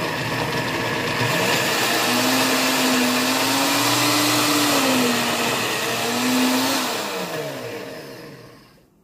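Countertop blender running on its puree setting, chopping and churning soaked sea moss. The motor's pitch wavers up and down as the load shifts, then the blender runs down and stops near the end.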